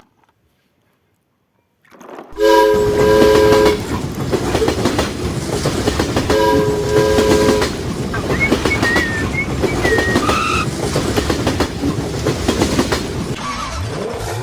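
A train running with a steady clickety-clack of wheels on rail joints, sounding its horn twice, each blast a little over a second long. It starts after about two seconds of silence.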